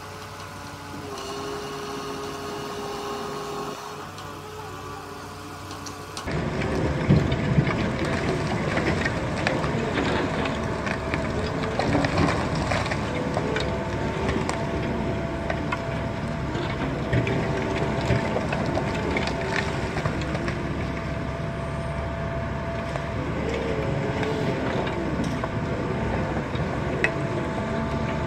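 A mobile crane truck's engine running steadily with a held tone. About six seconds in, this gives way to a louder high-reach demolition excavator working a chimney top: its engine and hydraulics run steadily under a stream of sharp cracks and clatter from breaking, falling masonry.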